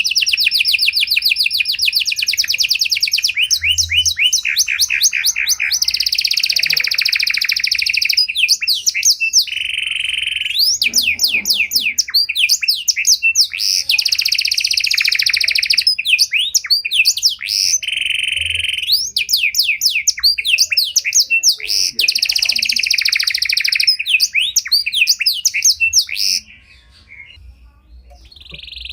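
Domestic canary (a pied 'panda' canary) singing a long, varied song of fast repeated trills and rolls, with a short break near the end before it starts again.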